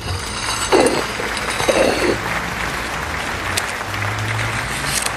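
Applause over music, starting suddenly.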